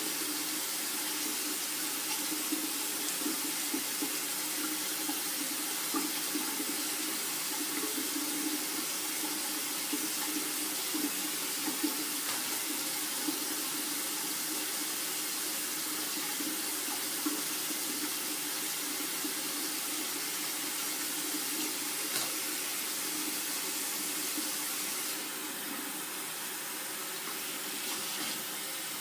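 Water running from a tap into a sink while hair is washed under it, with small knocks now and then. The flow gets slightly quieter near the end.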